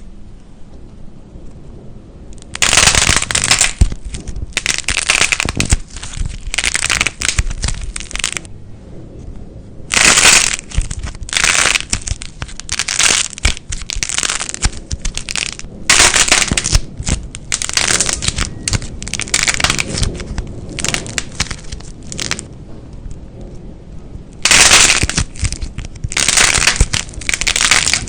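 Slime being squeezed and pressed by hand, giving repeated bursts of crackling and popping, each lasting about a second, with short gaps between them.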